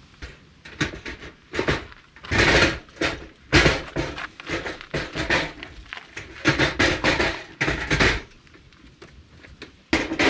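Camping gear being rummaged and pulled out of a tightly packed storage space: an irregular string of knocks, thuds and rustles, with a few louder scraping bursts.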